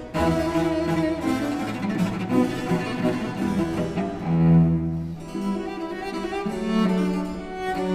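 Instrumental background music led by bowed strings, playing held, sustained notes.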